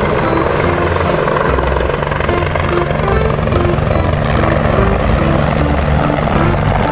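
Recorded helicopter sound, steady rotor and engine noise, over light background music with a simple plinking melody.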